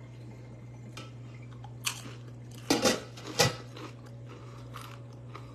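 A person biting and chewing a crunchy chip dipped in salsa: a few sharp crunches about two to three and a half seconds in, the loudest near the middle, then quieter chewing, over a steady low hum.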